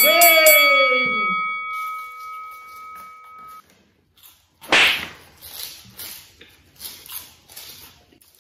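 A bell-like ding rings out and fades over about three seconds. About five seconds in comes a loud sudden burst of noise, then a run of short, soft crunches from people biting and chewing chocolate wafers.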